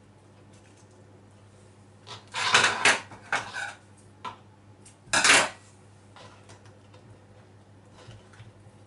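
Kitchen twine being pulled tight and cut with a knife while a pork roast is tied up: a few short handling noises, the loudest about two and a half and five seconds in.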